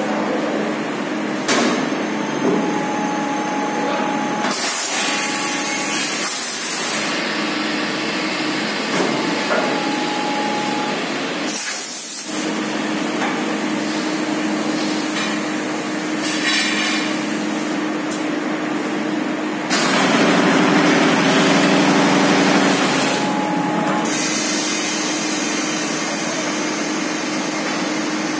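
Vertical cold box core shooter running through a cycle: a steady machine hum, a few knocks as the core box tooling clamps and moves, and several hissing blasts of compressed air. The longest and loudest blast lasts about three seconds, some two-thirds of the way through.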